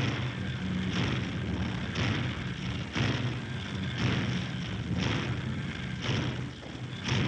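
Heavy machinery pounding in a steady rhythm, about one loud stroke a second, over a continuous low mechanical hum, as from a printing press running.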